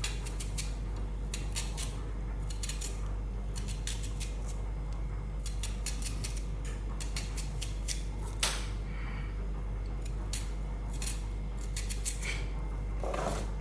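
Kitchen knife slicing through onion without a chopping board: irregular crisp cuts, several a second, with one louder cut about eight seconds in, over a steady low hum.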